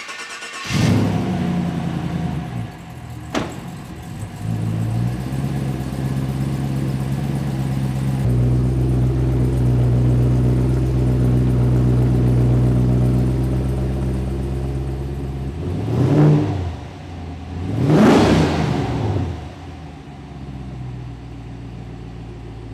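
Chevrolet LT1 V8 in a Land Rover Defender catching about a second in and settling into a steady idle. It is revved twice in quick succession near the end, the pitch rising and falling each time, then drops back to idle.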